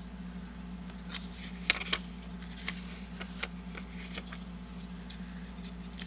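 A stack of paper postcards handled and flipped through by hand: scattered light papery clicks and rustles, with two sharper snaps a little under two seconds in. A steady low hum runs underneath.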